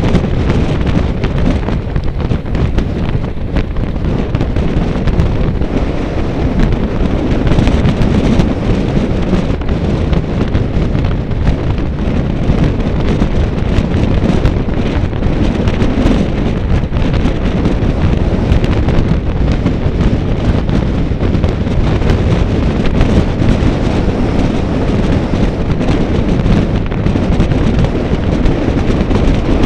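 Wind buffeting the microphone: a loud, continuous, deep rumbling rush that wavers in level throughout.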